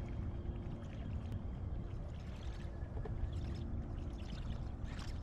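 Steady water gurgling and lapping around a fishing kayak on a lake, with a low rumble of wind on the microphone.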